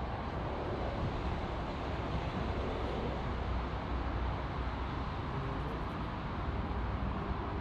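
Steady rumble of jet airliner engines, an even roar that neither rises nor falls.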